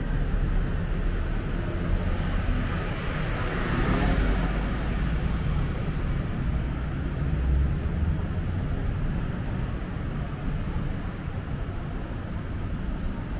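Street traffic: a steady low rumble of vehicles, with one vehicle passing close and loudest about three to four seconds in.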